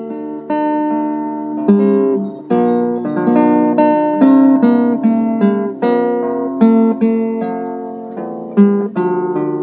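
Background music: acoustic guitar playing a plucked, strummed tune.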